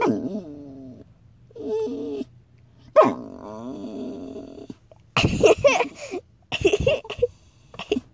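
A dog whining and "talking" in a string of drawn-out, wavering pitched whines, then two louder, rougher growly whines about five and six and a half seconds in.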